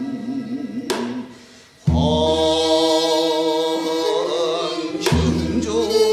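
Live gasa, Korean traditional lyric song: a male voice holds a note with a slow, wide vibrato, a janggu drum stroke lands about a second in, and after a short dip the wind and string accompaniment of piri, daegeum and haegeum comes in loudly on sustained notes, with another janggu stroke near the end.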